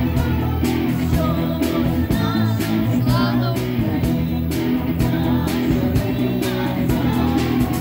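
Military band playing a patriotic song, amplified, with a steady beat and a voice singing the melody.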